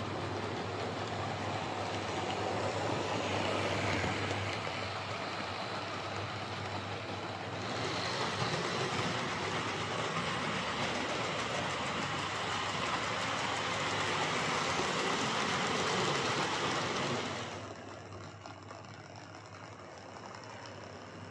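OO gauge model trains running on the track: a steady rush of motor and wheel noise over a low hum. The sound changes abruptly about seven and a half seconds in and drops quieter a few seconds before the end.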